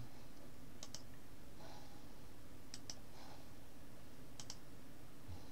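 Clicking at a computer's mouse and keys: three quick double clicks, about two seconds apart, over a steady microphone hiss.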